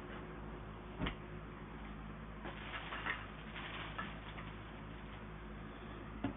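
Small metal clicks and light rattling of a lock and its parts being handled: one sharp click about a second in, a cluster of light ticks in the middle, and another click near the end.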